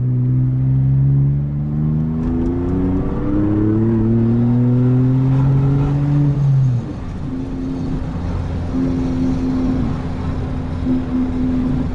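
Volkswagen Up TSI's 1.0 turbo three-cylinder engine accelerating hard with its exhaust disconnected after the catalytic converter, running through the bare pipe with no muffler. The pitch climbs, drops about three seconds in at a gear change, and climbs again. Near the middle the throttle is lifted and the engine settles into a steadier, lower note.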